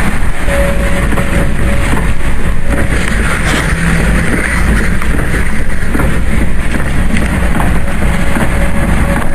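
Storm wind blowing hard across the microphone: a loud, steady rush of wind noise.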